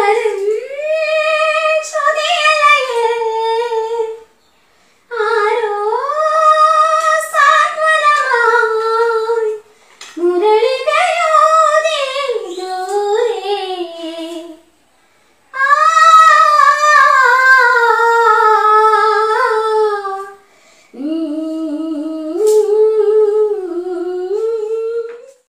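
A woman singing alone with no accompaniment, in five long held phrases with short breaks for breath between them.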